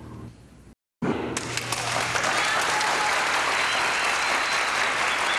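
Crowd applauding loudly, breaking in suddenly about a second in after a moment of silence, then clapping steadily.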